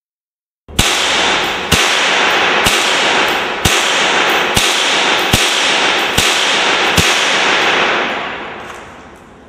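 M16-type rifle fired in semi-automatic mode: eight single shots about a second apart. The loud reports run together in a continuous echo that dies away about a second after the last shot.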